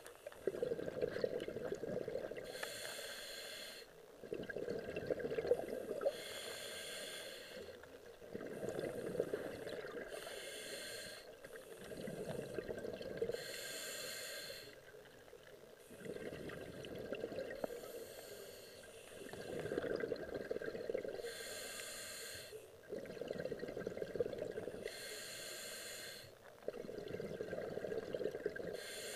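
Diver breathing through a scuba regulator underwater: a hissing inhale with a faint whistle, then a longer burst of bubbling exhaust, repeating about every four seconds for some eight breaths.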